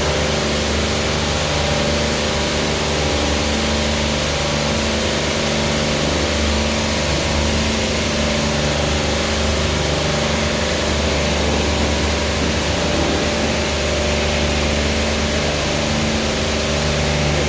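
Touchless automatic car wash machine running: a steady pump-motor hum under the hiss of high-pressure water jets spraying.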